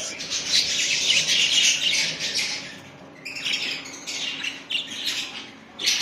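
Caged budgerigars chattering and chirping together in a dense, high twittering that thins out briefly about halfway through.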